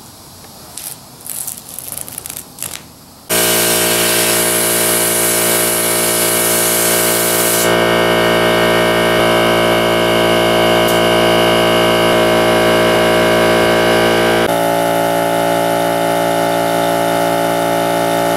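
A few soft rustles and clicks, then about three seconds in an air compressor's steady, loud running comes in abruptly. A spray gun hisses over it for the first few seconds, and the running tone shifts slightly near the end.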